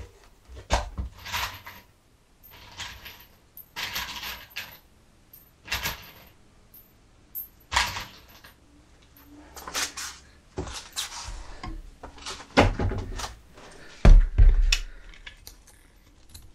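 Small metal hardware, screws and screwdriver bits, clinking and rattling as they are handled, in irregular bursts with quiet gaps. A heavier knock comes about 14 seconds in.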